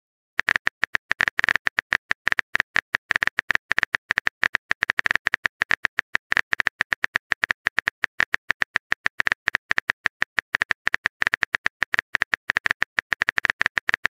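Rapid, irregular keyboard-tap clicks from a texting-story app's typing sound effect as a message is typed in, several clicks a second, starting about half a second in.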